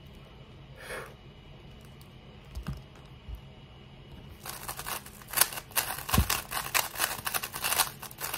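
A few soft knocks as a 3x3 speedcube is set down, then, about four and a half seconds in, the plastic cube is turned rapidly in a speedsolve: a dense run of quick plastic clicks and clacks, like fast typing.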